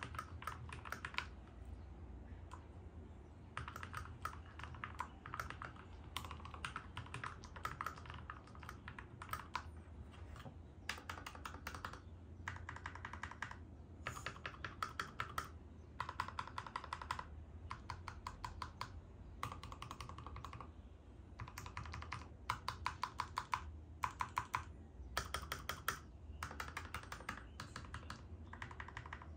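Keychron K2 V2 mechanical keyboard with lubed Gateron G Pro Red linear switches and a foam-dampened case, typed on in quick runs of keystrokes with short pauses between them.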